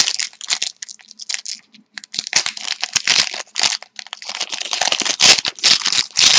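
A hockey card pack's wrapper being torn open and crinkled by hand, a rapid, irregular run of sharp rustles and crackles.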